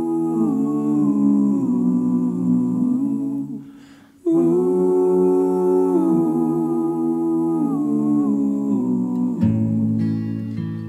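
Music: wordless hummed vocal harmonies, several pitched lines moving together, with a brief pause about four seconds in. Near the end a low note and acoustic guitar strumming come in.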